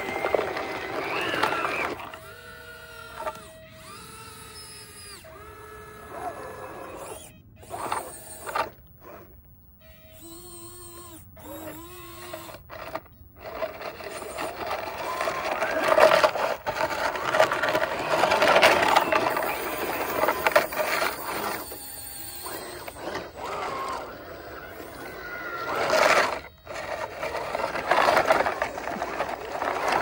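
Small electric motors of 3D-printed RC tracked skid steer loaders whining as they drive and work, the pitch rising and falling, with gravel crunching under the tracks and bucket.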